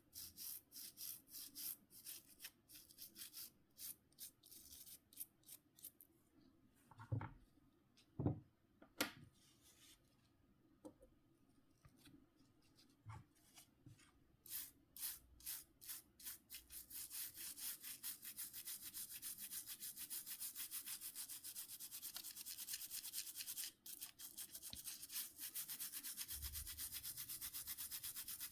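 Rubbing strokes on the parts of a Nokia C5-00 phone as it is cleaned: scattered strokes with a few light knocks of handling about a quarter of the way in, then fast, even back-and-forth scrubbing through the second half.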